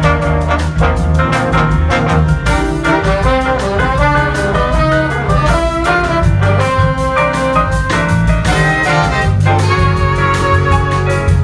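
Big band jazz orchestra playing a bossa nova arrangement: trumpets, trombones and saxophones in ensemble over a steady bass line and light percussion.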